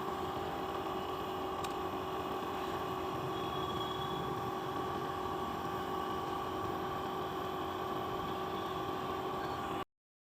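A motor-driven machine running with a steady, unchanging hum carrying a few fixed tones.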